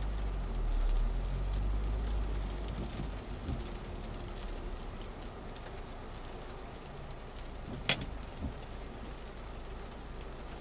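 Rain and traffic heard from inside a car during a thunderstorm: a deep rumble of thunder swells and fades over the first few seconds, under a steady hiss of rain. A single sharp click about eight seconds in is the loudest sound, followed by a smaller one.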